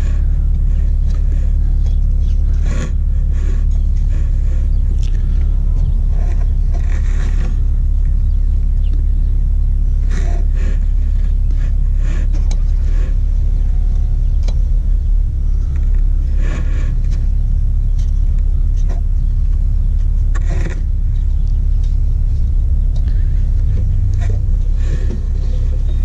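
A steady low rumble, with short scrapes and rustles now and then as a toothed timing belt is worked by hand onto the cam sprocket and pulleys.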